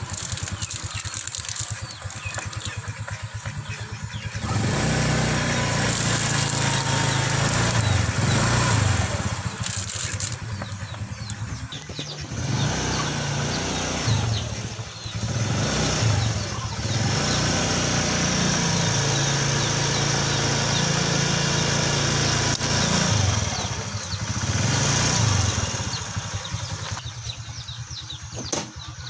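Motorcycle engine running, idling in between and getting louder in several stretches as it is revved and the bike rolls over small objects to crush them.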